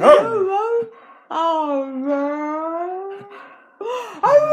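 A dog howling in long, wavering notes along with a person singing. The longest note starts about a second and a half in and is held for about two seconds.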